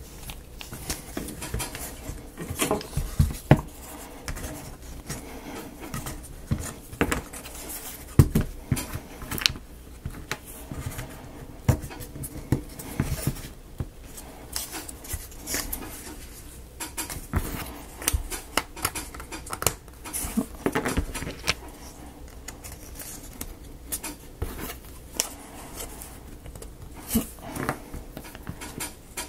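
Laser-cut plywood model pieces clicking and tapping as they are handled, fitted and pressed together by hand, in irregular small knocks.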